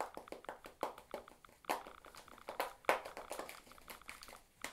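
Many quick, irregular clicks of typing on a smartphone touchscreen, several a second, with a few louder taps.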